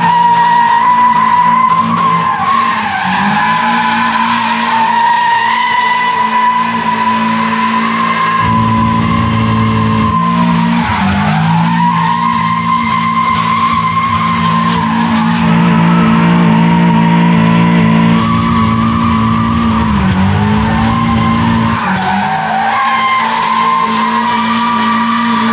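Tires squealing continuously as a 1980 VW Rabbit pickup with a Mazda Miata engine and rear-drive drivetrain spins donuts under power. The squeal wavers in pitch over the steady note of the high-revving engine, and both dip briefly a few times as the revs fall and pick up again.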